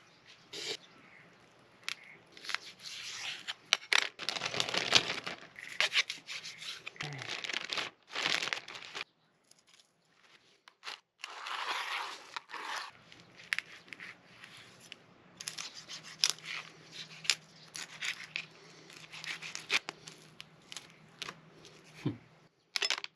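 A plastic bag crinkles and rustles as sagoshi fillets are packed into it. A knife scrapes and cuts on a plastic cutting board as the fish is worked. The sounds come in irregular handling bursts with brief pauses.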